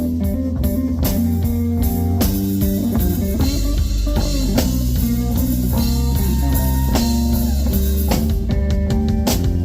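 Live blues band playing an instrumental passage: guitar over bass guitar and a drum kit keeping a steady beat.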